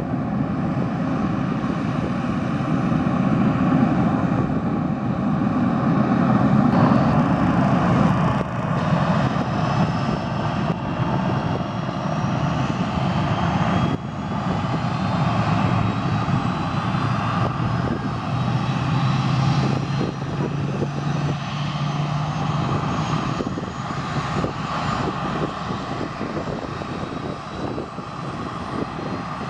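Canadair Challenger business jet's turbofan engines running at ground idle, a steady loud rumble with a high whine that creeps slightly upward.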